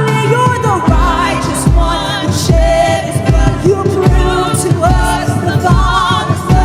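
Live worship band playing with singing. The voices hold wavering notes, and a steady low drum-and-bass beat comes in about a second in, roughly one beat every 0.8 seconds.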